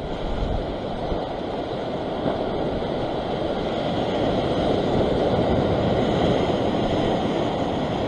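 Sea waves washing and breaking against a rock ledge in a steady rush, growing a little louder through the middle.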